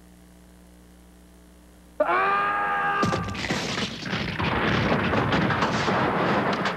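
A karate shout about two seconds in, then a heavy thud as a bare hand strikes a solid clay paver that does not break, followed by a loud, dense noisy stretch to the end.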